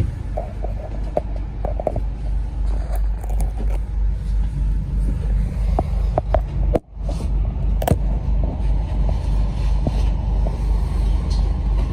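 On-board sound of a New Routemaster diesel-electric hybrid double-decker bus: a steady low engine rumble with scattered knocks and rattles as it moves slowly. The sound drops out for a moment about seven seconds in.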